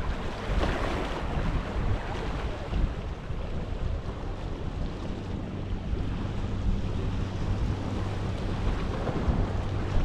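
Sea waves washing against the shore, with a brighter wave wash about a second in, and wind buffeting the microphone. A low steady hum runs underneath.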